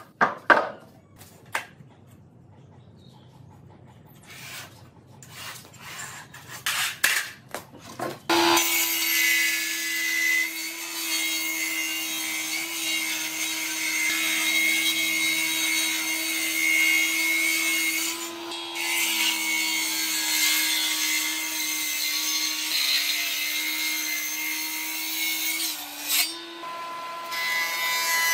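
A few scattered knocks from wood being handled, then from about eight seconds in a Hitachi jointer-planer runs with a steady hum. Its cutterhead shaves a board fed across it, making a continuous rasping hiss that dips briefly near the end.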